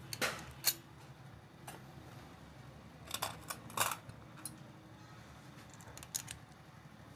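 Light metallic clicks and taps from air rifle parts being handled on a workbench, a scattered handful of them, the loudest near the start and around three to four seconds in.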